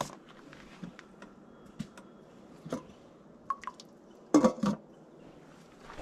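Light scattered clicks and taps, then two sharp clinks about four and a half seconds in as the glass lid of a stainless steel pot of water heating on a small electric hot plate is handled and lifted.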